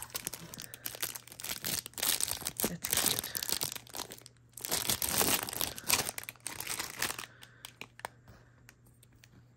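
Clear plastic bag crinkling as hands unwrap an ornament from it. The crackling is dense for about seven seconds, with a brief pause a little after four seconds, then thins out to scattered crackles near the end.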